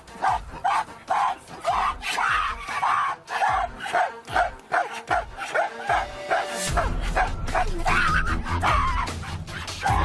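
Background music with a run of short, repeated barking calls, about two to three a second; a deep bass comes in about two-thirds of the way through.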